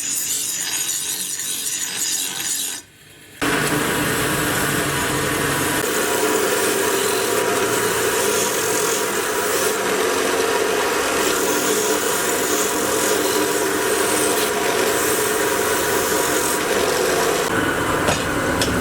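Steady rasping and scraping of tool work on a car brake shoe, cutting out briefly about three seconds in.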